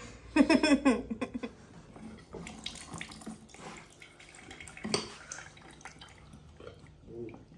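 Manual lever juicer pressing sweet lime, the juice trickling and splashing into a steel tumbler, with a single knock of the press about five seconds in.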